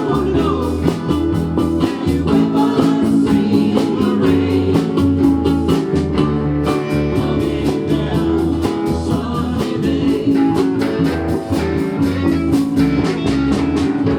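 A group of ukuleles strumming in a steady rhythm while voices sing a rock song.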